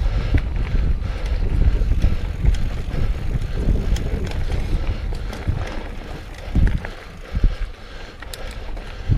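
Mountain bike riding over a rough dirt trail: tyres rumbling over bumps and roots, the bike knocking and rattling, with wind on the microphone. The rattling eases a little past the middle, with a few sharper knocks.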